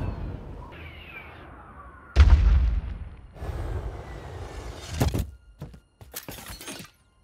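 Film sound effects of a heavy armored suit crashing into the ground: a loud, deep thud about two seconds in with a dull rumble of earth and debris after it. Another sharp hit comes about five seconds in, followed by a few lighter knocks.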